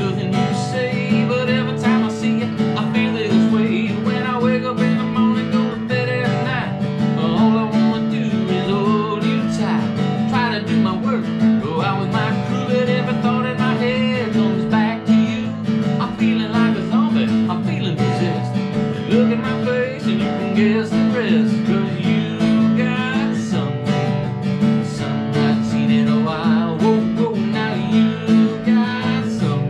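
A man singing a country song while strumming an acoustic guitar.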